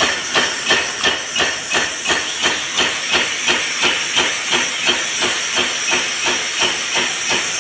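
Steady hissing broken by even, rhythmic chuffs, about three a second, keeping the same pace throughout.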